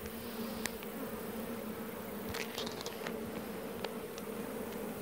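Honeybees from an open hive buzzing as a steady hum, with a few light clicks scattered through it.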